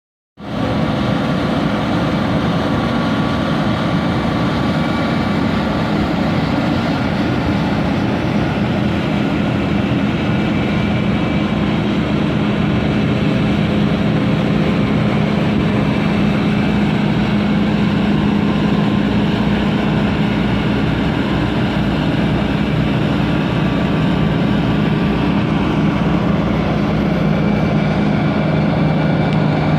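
Combine harvester running steadily while harvesting wheat: a loud, even engine drone with a constant hum and a higher whine from the machinery, dropping slightly in pitch near the end.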